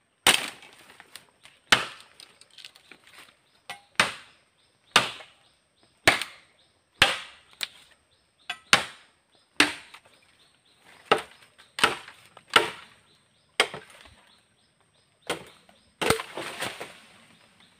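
A blade chopping into a green bamboo stalk, about fifteen sharp strikes at an uneven pace of roughly one a second. A longer rustle follows the last strikes near the end.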